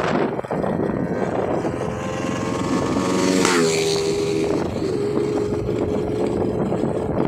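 Motorcycle riding along with wind buffeting the microphone. About three and a half seconds in, an engine note swells and drops sharply in pitch, then settles into a steady hum.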